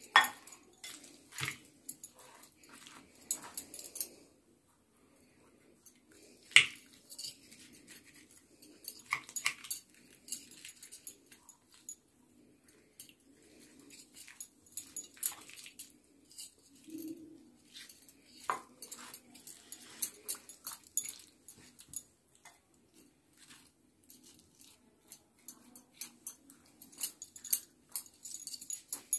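Plastic spoon stirring oily, spice-coated chopped carrot, radish and green chillies in a glass bowl: irregular light clicks and scrapes against the glass as the pickle is mixed, with a few sharper knocks.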